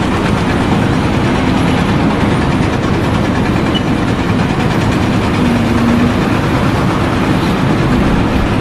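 A heavy engine running steadily and loudly, a dense, even low-pitched noise with faint steady tones.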